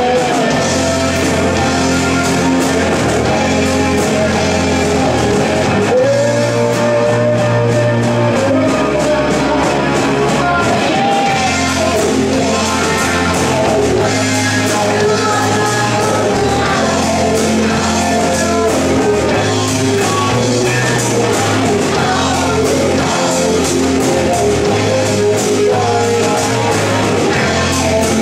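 A live rock band playing: electric guitar, bass guitar and drum kit, with a singer's voice over them.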